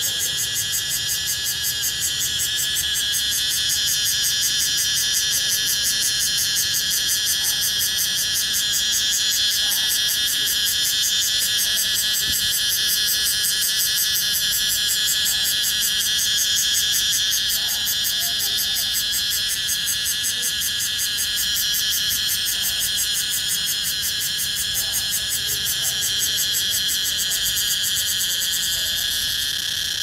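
Cicada singing: a steady, high, buzzing drone made of very rapid pulses, held without a break.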